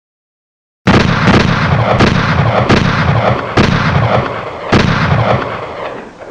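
Recorded gunfire: rapid shots in five loud bursts, each opening with a sharp crack, that fade away near the end.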